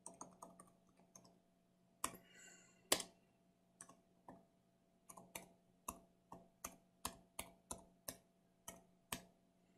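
Faint keystrokes on a computer keyboard: about fifteen separate clicks at an uneven typing pace, with a low steady hum beneath.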